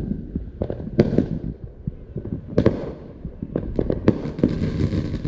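Fireworks going off: sharp bangs at irregular intervals, then from about four seconds in a dense crackling of many small reports.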